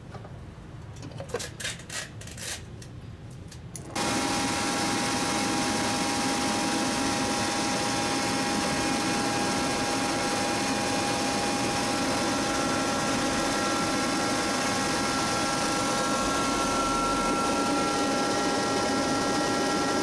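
Hanshin RCH-7 rotary screw air compressor with its Rotorcomp screw airend and electric motor running: a loud, steady mechanical noise with a held high whine. It comes in suddenly about four seconds in, after a few light clicks.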